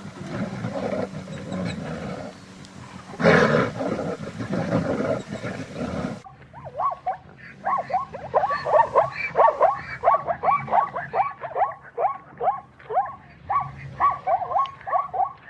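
Wild animal calls: about six seconds of rough, low growling roars, then, after an abrupt cut, a fast run of short, falling squeaks, several a second.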